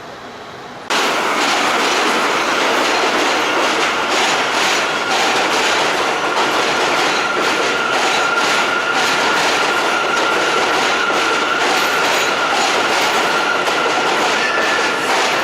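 New York City subway train running on the rails. It starts abruptly about a second in, with the wheels clacking over the track and a steady high-pitched tone under the rumble.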